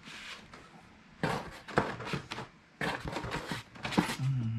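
Paper and cardboard rustling and scraping as hands rummage inside a cardboard shipping box and pull out a printed leaflet, in two bursts about a second in and near three seconds in. A brief low hum follows near the end.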